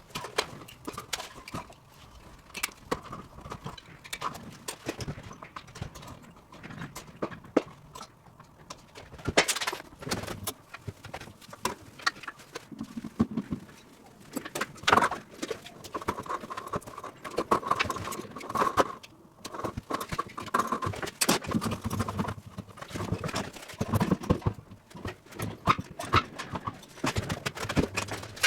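Irregular knocking, tapping and clattering of hands-on dismantling work, with a few short squeaky scrapes about halfway through.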